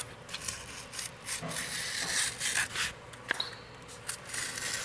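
A cardboard template being worked by hand: a run of irregular, scratchy scraping and rubbing strokes.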